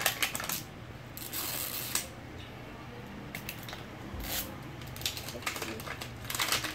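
Crinkling, rustling and tearing of the thin plastic wrapping as LOL Surprise balls are peeled open layer by layer by hand, in repeated short bursts that come thickest near the start and again toward the end.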